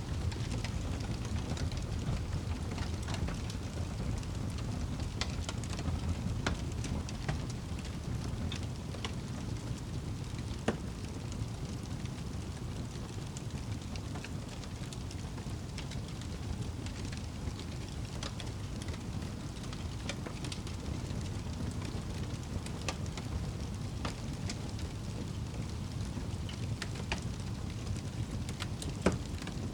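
Wood fire burning in a fireplace: a steady low rumble of flames with scattered crackles and pops, two of them louder, about a third of the way in and near the end.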